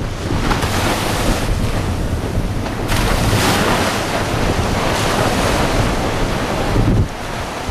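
Surf breaking and washing up the beach in the shallows, with wind buffeting the microphone in a heavy low rumble. The wash swells about three seconds in and eases off near the end.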